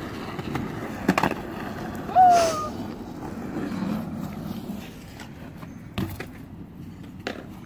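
Skateboard wheels rolling over concrete and asphalt, with a few sharp clacks of the board. About two seconds in comes the loudest moment, a short falling squeal.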